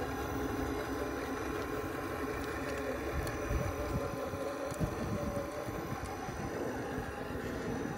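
Electric motor and gearbox of a Traxxas TRX-4-based RC rock crawler whining steadily as it creeps up a steep rock crack. Wind gusts rumble on the microphone underneath.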